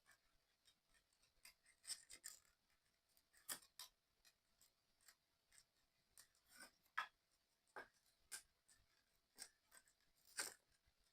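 Faint, irregular clicks and light scrapes of small model-kit parts being handled and pressed together during assembly, spaced a second or so apart.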